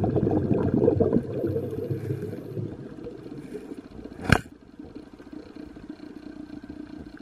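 Muffled underwater noise picked up by a submerged camera: a dense crackling rumble for the first two or three seconds that fades away, a single sharp click about four seconds in, then a low steady hum.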